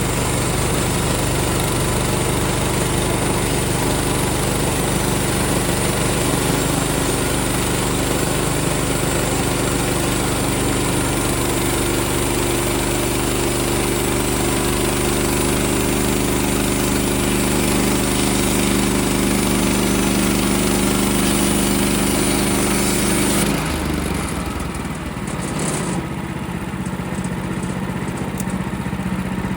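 Portable bandsaw sawmill's gas engine running hard while the band blade cuts a slab off a white pine log. About 23 seconds in, the hiss of the cut drops away and the engine note falls, as the blade comes out of the cut.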